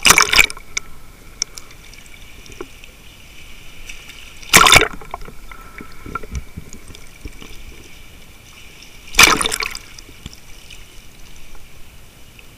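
Water heard by a camera just under the surface, sloshing and bubbling, with three loud short rushes about four and a half seconds apart and a steady hiss between them.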